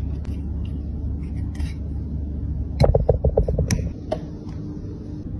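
Small plastic and metal clicks and taps from a lipstick tube being taken apart with tweezers, over a steady low hum. About three seconds in there is a quick rattling run of about ten clicks, the loudest sound here.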